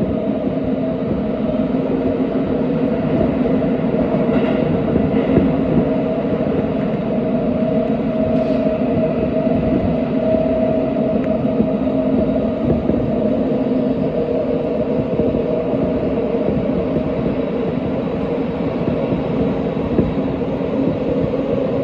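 Tokyo Metro 17000 series subway train running at speed through a tunnel, heard from inside the car: a steady rumble of wheels on rail with a constant hum from the drive, echoing off the tunnel walls.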